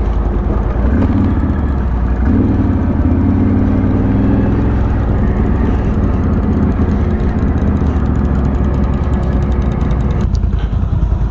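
ATV engine running steadily, its note rising and growing louder about a second in.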